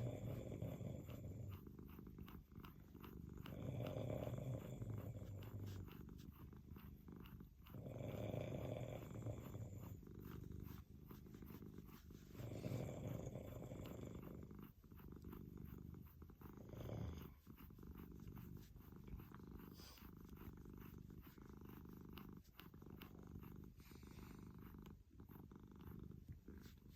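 Cat purring, a low pulsing rumble that swells louder about every four seconds with its breathing, then settles into a steadier, quieter purr after about 17 seconds.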